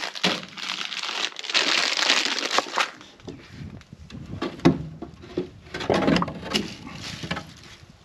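Crinkling and rustling for about three seconds as the strap hinges are handled, then scattered wooden knocks and scrapes as a glued poplar board door is lifted and set into the coop's clean-out opening.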